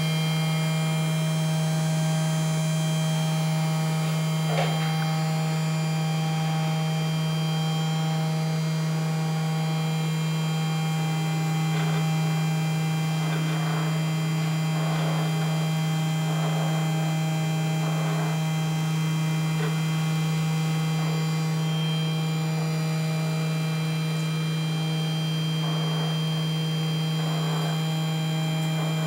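Small homemade PCB milling machine running: its motors give a steady hum with thin, higher steady whines above it, and faint short scraping noises come and go, with one small click about four seconds in.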